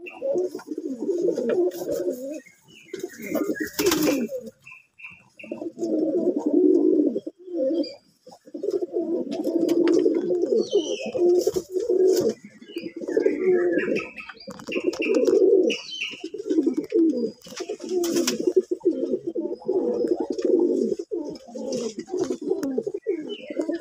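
A flock of fantail pigeons cooing almost without pause in overlapping low phrases, with scattered higher chirps and a few sharp clicks.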